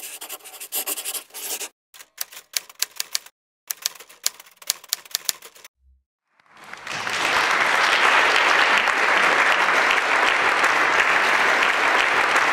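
Felt-tip marker scratching across paper in several short strokes with brief pauses, drawing a logo. About six and a half seconds in, an audience starts applauding, quickly swelling to a steady clapping that is the loudest sound.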